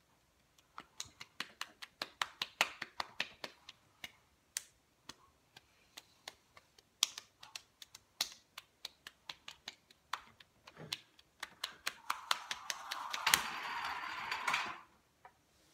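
Open palms smacking bare cheeks over and over in a quick, even rhythm of about three to four sharp slaps a second, with a couple of short pauses. Near the end a burst of rushing noise lasting about three seconds rises over the slaps.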